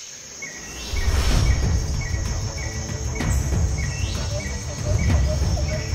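Produced jungle sound effects for an intro: a steady high cricket-like insect trill and short repeated bird chirps. About a second in, a deep, loud drum-like rumble enters underneath, with a few brief whooshes.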